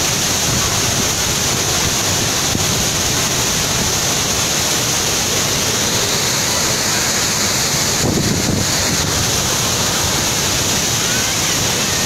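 Steady loud rush of a tall waterfall pouring into its plunge pool.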